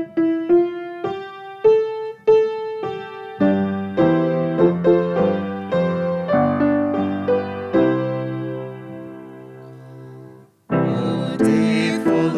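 Piano playing a hymn introduction. It starts as a single melody line of evenly spaced notes, takes up full chords with a bass line about three seconds in, and settles on a held chord that fades away. After a brief break about ten seconds in, a fuller passage begins.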